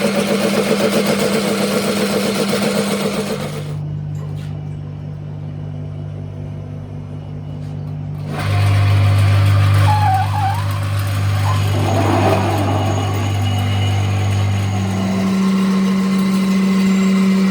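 A machine's motor running with a steady hum that changes pitch in steps about three times. For the first few seconds it is overlaid by a gritty, hissing working noise.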